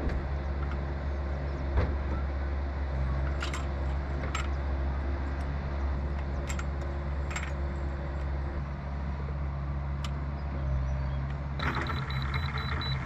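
Heavy machinery engine running steadily, with a few light metallic clinks of equipment being handled in the middle. Near the end a laser-level receiver on a grade staff starts a high, pulsing beep rather than one steady tone, the sign that the receiver is not yet at the laser's level.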